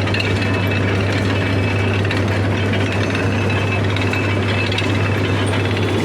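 Sugarcane juice machine running steadily: a constant low hum with a dense, fast mechanical rattle over it.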